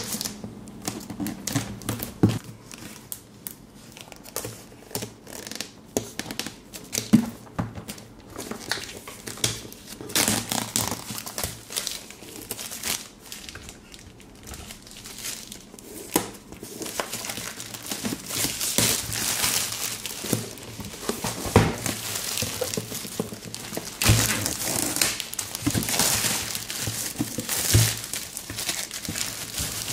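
A power supply's retail box and packaging being handled. Scattered taps and knocks come first, then dense rustling from about a third of the way in, loudest over the last half with a few sharper knocks.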